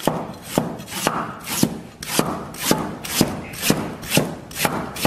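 Chinese cleaver slicing fresh ginger on a round wooden chopping block, the blade knocking on the wood in an even rhythm of about two strokes a second.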